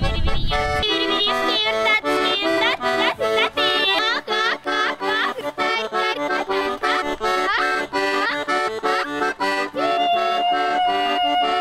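Button accordion playing a fast, lively folk dance tune in quick repeated notes, with a girl's voice singing over it in upward swoops. Near the end a long note is held steady.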